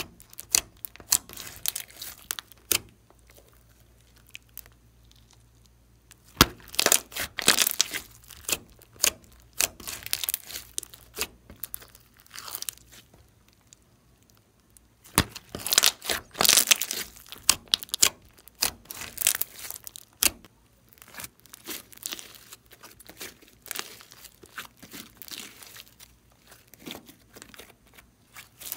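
Slime being squished, pressed and stretched by hand, giving dense bursts of crackling, popping clicks with a couple of quieter pauses in between.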